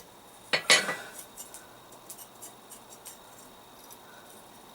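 Hammer striking a chisel to cut veins into a hot forged leaf: two sharp metallic blows in quick succession about half a second in, then faint light taps.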